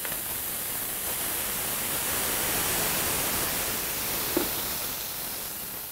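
Bordeaux wine squirted onto a hot flat-top griddle around a burger patty, sizzling and hissing steadily as it boils off into steam. A brief tap about four seconds in as a metal basting dome is set down over the patty, and the hiss eases off near the end.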